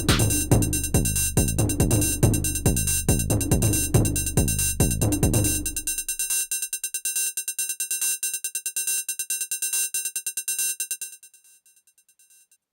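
Electronic dance beat from a Teenage Engineering PO-32 pocket drum synthesizer: low kick drums that drop in pitch on a steady beat, under fast ticking hi-hats. About halfway through the kicks drop out, leaving the ticks and a held tone. These stop near the end, and a few faint ticks trail off.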